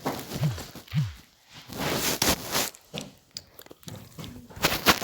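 Plastic fidget toys handled and pressed: irregular clicks and crackling, with two short low thuds in the first second.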